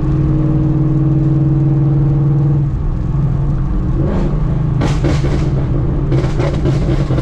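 Ford Mustang GT's 5.0 Coyote V8, straight-piped through long-tube headers and an X-pipe with no mufflers, heard from inside the cabin while driving: a steady drone at constant revs, then after about three seconds the note changes and a few irregular bursts of crackling come through, the pops of its burble tune.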